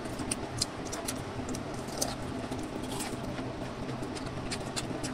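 Close-up chewing of corn on the cob: many small, sharp wet mouth clicks and smacks, irregularly spaced, over a steady low hum.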